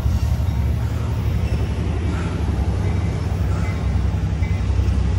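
Amtrak California bilevel passenger cars rolling past on the rails as a departing train gets under way, a steady low rumble.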